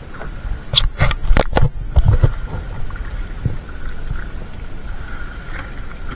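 Wet fishing net being shaken and handled in water beside a boat: a quick run of sharp slaps and splashes about a second in, then a few dull knocks, over a steady low rumble.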